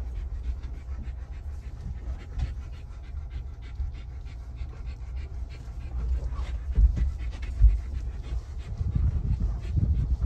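A dog panting steadily inside a vehicle cabin, over the low rumble of the Ford Bronco crawling slowly over rough ground, with a couple of heavier low thumps about seven seconds in.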